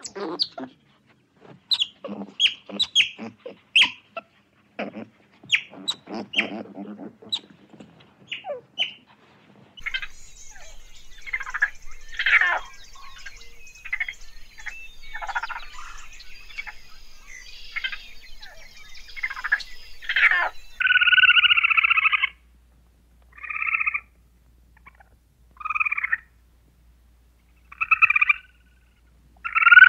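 A string of small animals' calls. First come many short, sharp squeaks and chirps, then a run of busier calling. From about two-thirds of the way in there are five separate calls, the first about a second and a half long and the rest shorter.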